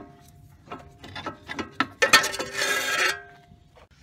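A front strut and coil spring being worked out of a car's wheel well: scattered metal clicks and knocks, then about two seconds in a scraping metallic rasp lasting about a second as the spring and strut rub past the suspension parts.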